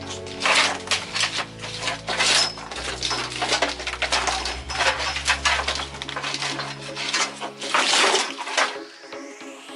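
Background electronic music: sustained bass notes that change every few seconds under sharp percussive hits, with a rising sweep near the end.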